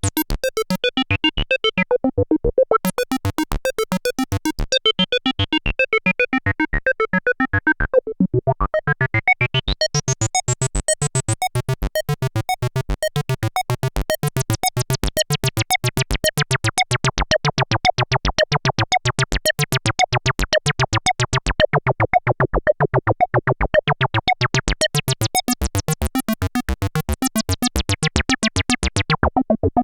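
Arturia MicroFreak synthesizer playing a fast, repeating acid bassline sequence. A resonant filter sweeps open and closed, so the notes swing between dull and bright, squelchy tones.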